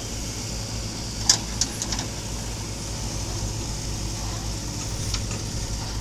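JCB backhoe loader's diesel engine running steadily as the machine swings its arm and bucket, with a few sharp knocks about a second in and one more near the end.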